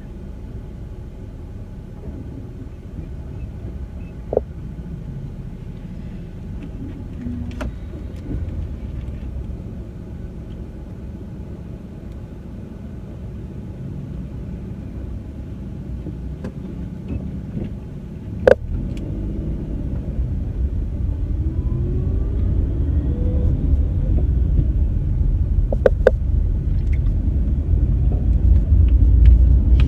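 Low rumble of a moving vehicle, growing louder over the last ten seconds or so, with a few sharp clicks or knocks, the strongest about two thirds of the way in.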